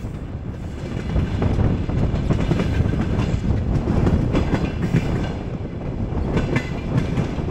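Soviet-era passenger train carriage running along the track, a steady rumble from the wheels and running gear with irregular clicks and knocks as the wheels pass over rail joints, heard at an open carriage window.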